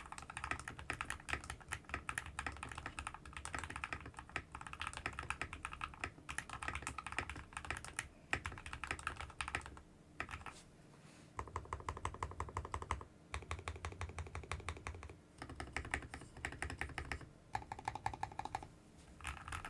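Typing on a Keydous NJ68 Pro mechanical keyboard with hand-lubed Everglide Aqua King linear switches, tape and foam modded, giving creamy keystrokes. The keys are typed steadily, with a few stretches of fast, evenly repeated presses in the second half.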